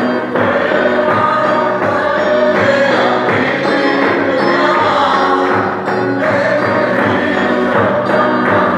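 A congregation singing a gospel hymn together, with a large drum beating a steady rhythm under the voices.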